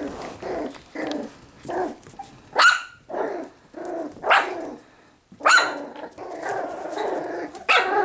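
Two puppies play-fighting, giving a run of short growls and high little barks, some rising sharply in pitch.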